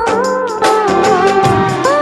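Background music: a wavering, sliding melody over a steady beat.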